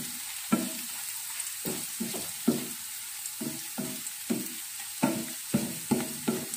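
Wooden spatula scraping and knocking on a nonstick frying pan while chopped garlic, onion and chili are stirred, over a steady sizzle of hot oil. The strokes come irregularly, about one to two a second.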